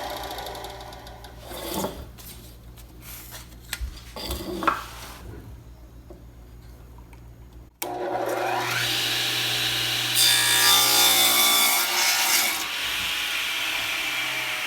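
Wood being shaped on a power tool. First there are quieter rubbing and knocking sounds of wood being handled. About eight seconds in, a steady, loud machine sound with a rough cutting noise starts suddenly and is loudest around ten to twelve seconds in.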